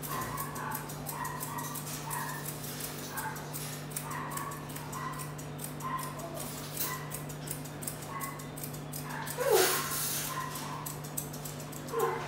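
Dog whimpering in short, high-pitched whining notes, with one louder whine falling in pitch about nine and a half seconds in. Grooming scissors snip lightly, over a steady low hum.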